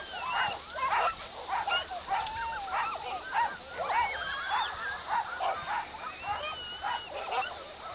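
Many sled dogs barking and yelping together in a dense, continuous chorus of overlapping calls, the excited clamour of a dog team.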